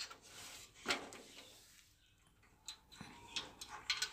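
Faint, scattered light clicks and knocks of hands handling a gas geyser's wires and plastic connectors, a few separate taps with soft rustling between them.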